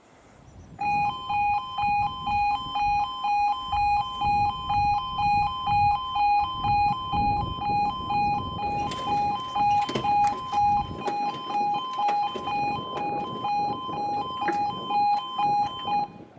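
E2S Appello level-crossing alarm sounding its two-tone yodel, alternating between a lower and a higher pitch about twice a second: the warning that the crossing is closing for an approaching train. It starts about a second in and cuts off near the end, once the barriers are down.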